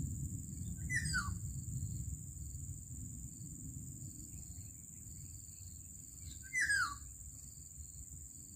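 Black-naped oriole giving two harsh, downward-sliding calls about five and a half seconds apart, the second louder, over a steady high-pitched whine.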